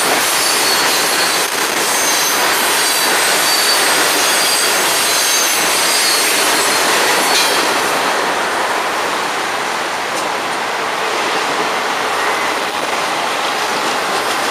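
Freight cars of a long freight train rolling past close by, wheels running steadily on the rails. High wheel squeals ring over the first half while the hopper cars pass. About halfway through the sound turns duller, with no squeal, as the double-stack well cars go by.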